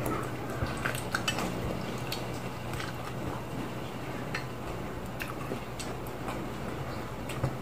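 Eating seeded grapes: irregular small clicks and mouth noises from chewing and from grapes being picked off the bunch, over a steady low hum.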